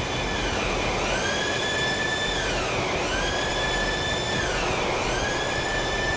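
Ship's engine-room machinery running: a steady noise with a whine that dips in pitch and climbs back about every two seconds.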